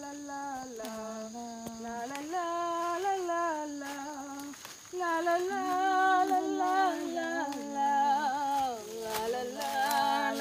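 A woman's voice humming a slow tune without words, long held notes stepping up and down in pitch with short breaks between phrases.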